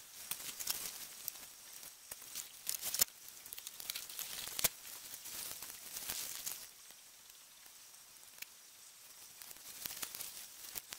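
Rustling and crackling of people moving on foot through dry grass and scrub, in uneven bursts with sharp little cracks, easing off for a few seconds past the middle before picking up again near the end.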